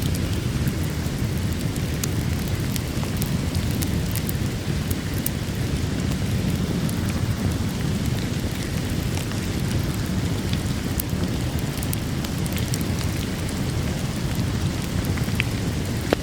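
Steady heavy rain with a deep, even rumble, and a wood fire's sharp crackles popping at scattered moments over it.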